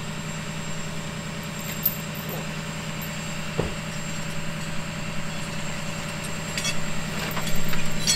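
Truck engine idling steadily with an even low hum. Light metallic clinks near the end as the recovery chains and hooks are handled.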